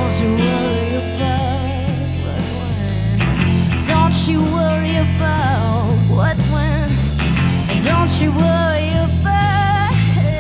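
Live rock band playing: a woman sings with vibrato over electric guitars, bass guitar and a drum kit keeping a steady beat.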